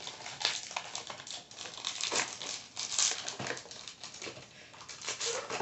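Plastic snack wrapper crinkling in irregular bursts as it is handled and pulled open.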